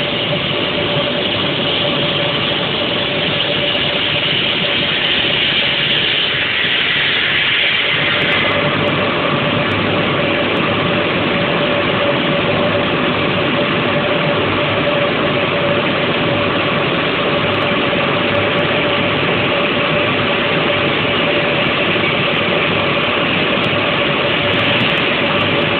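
OMC-DPJ3500 multi-blade block cutting machine running steadily, its large circular saw blade cutting a stone block under a water spray, with a steady hum running through the noise. About eight seconds in, the cutting noise shifts in tone and then holds steady.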